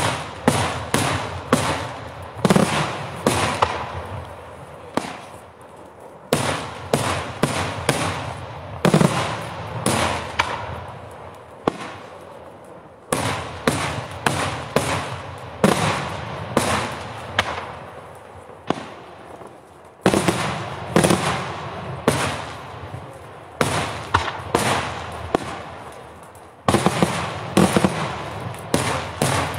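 Pirotecnica Cavour daytime fireworks: aerial shells bursting overhead in a rapid, irregular string of sharp bangs, each echoing. The bangs come in flurries that start afresh several times.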